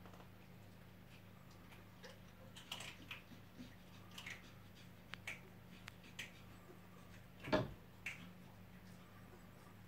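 Faint steady electrical hum with scattered small clicks and taps, one louder click about seven and a half seconds in.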